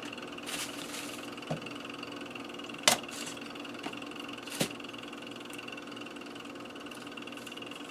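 Onions being handled and cleaned: a brief papery rustle, then a few sharp knocks, the loudest about three seconds in, over a steady hum.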